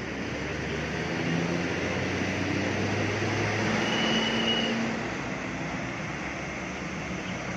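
A bus driving past on the road, its engine and tyre noise swelling through the middle and easing off again.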